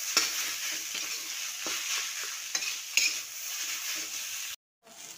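Fried rice stir-frying in a hot wide pan: a steady sizzle with the repeated scrape and clack of a steel spatula tossing the rice. The sound breaks off for a moment near the end.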